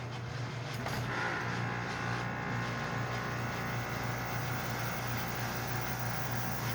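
Paseco PWA-2100W window air conditioner running with a steady low hum and fan noise. About a second in there is a click, then a deeper hum and a faint high whine join and carry on.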